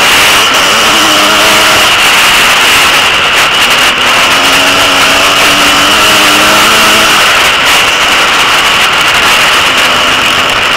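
Dirt bike engine running hard under a rider-mounted camera, with wind rush on the microphone. The engine pitch climbs over a few seconds and drops back about seven seconds in.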